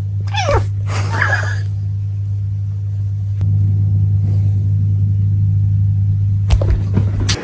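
A cat meowing twice in quick succession, the calls falling in pitch, over a steady low hum. Two sharp clicks come near the end.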